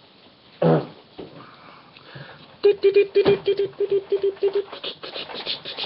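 Dog sniffing and snuffling right at the microphone while being held up to it. About halfway through comes a quick, even run of short nasal snorts, about five or six a second, lasting about two seconds.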